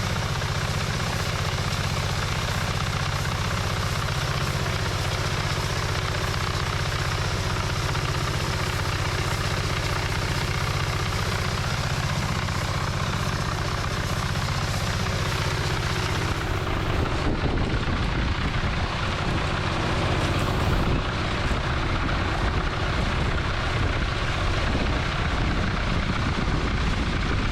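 An engine running steadily. About sixteen seconds in, the sound changes to a rougher, uneven rumble.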